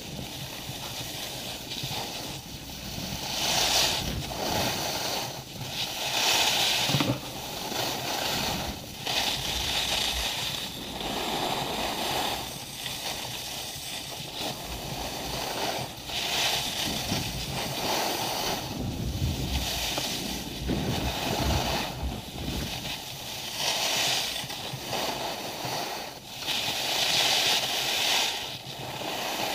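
Skis scraping and hissing over packed snow, swelling with each turn every few seconds, with wind rushing over the microphone.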